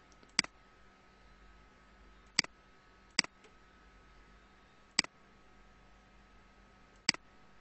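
Computer mouse clicking five times at uneven intervals, sharp single clicks over a faint room background.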